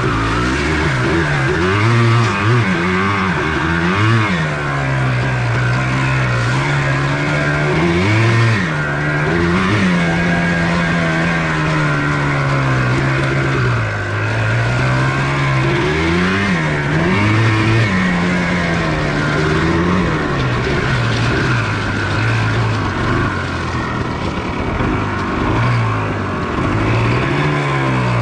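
1994 Yamaha Blaster 200's single-cylinder two-stroke engine running under way, its pitch rising and falling again and again as it revs up and eases off.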